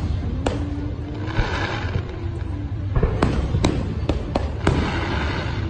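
Aerial fireworks shells bursting overhead: about seven sharp bangs, one shortly after the start and a quick run of them from about three to nearly five seconds in.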